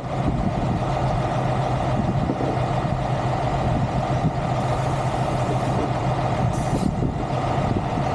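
Heavy truck's diesel engine idling steadily, a constant low hum. Two short, faint hisses come about halfway through and again a little later.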